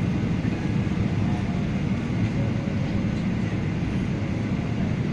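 Steady low rumble of an airliner landing.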